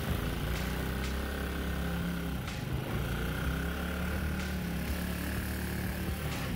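Single-cylinder Honda GX200 engine, modified to about 11 hp, running steadily at speed as it drives a long-tail mud motor pushing a small aluminum jon boat along.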